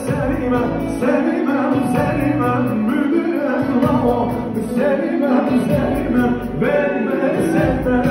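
Loud live band music with a singer, a steady dance tune with no break.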